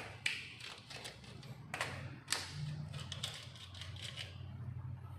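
Irregular clicks and taps of a screwdriver loosening a circuit breaker's terminal screw in a distribution board, freeing the red phase wire to be pulled out. The sharpest clicks come shortly after the start and around two seconds in.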